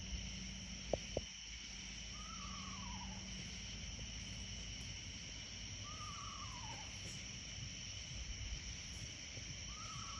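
A night animal's call repeated three times about every four seconds: a short, quavering note that rises briefly and then slides down. A steady high buzz of insects runs underneath, with two sharp clicks about a second in.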